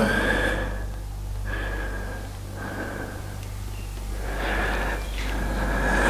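A person's breathing close to the microphone, swelling and fading every second or two, over a steady low electrical hum.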